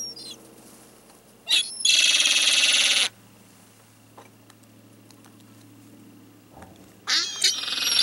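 Gulls calling: a brief call at the start, then two loud, harsh, drawn-out calls, the first about a second and a half in and lasting about a second and a half, the second starting about seven seconds in. A faint steady low hum runs underneath.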